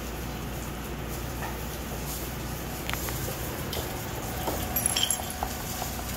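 Chef's knife mincing shallot on a wooden cutting board: scattered light taps, mostly in the second half, over a steady low hum. A brief metallic clink comes about five seconds in.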